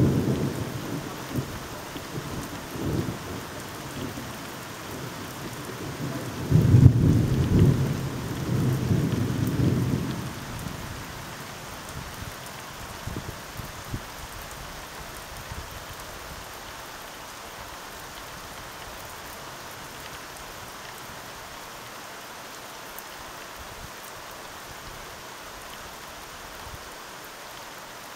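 Steady rain with distant thunder: a short low rumble at the start, then a louder, longer rumble about a quarter of the way in that lasts about four seconds and dies away, leaving only the rain.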